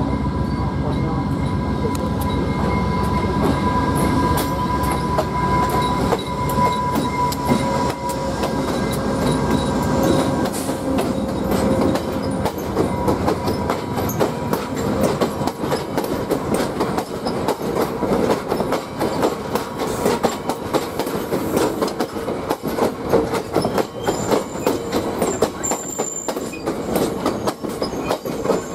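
VIA Rail P42 diesel locomotive passing at the platform, its engine a steady drone with whining tones, followed by stainless-steel passenger cars rolling past as the train comes in to its stop. The wheels clack over the rail joints, and there is a brief high squeal near the end.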